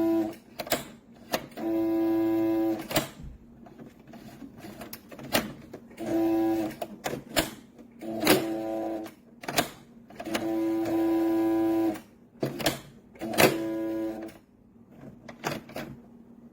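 Electric sewing machine stitching in six short runs of about a second each, its motor hum steady in pitch, with sharp clicks and knocks between the runs.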